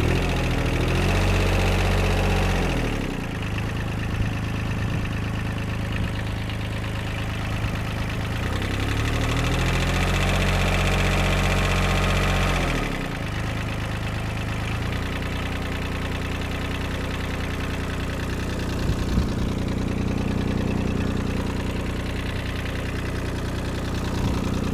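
Yanmar three-cylinder diesel of a 2004 Kobelco SK13SR mini excavator running again after sitting for seven years. It is revved up twice, each time held for a few seconds and let back down, then runs steadily.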